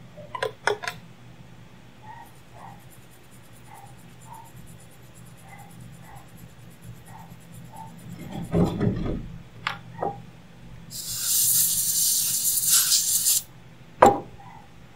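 Handling noises at a microsoldering bench: a few sharp clicks and taps of tools and the board being moved, a low rumble about halfway through, and a steady hiss lasting a couple of seconds near the end, over a faint low hum.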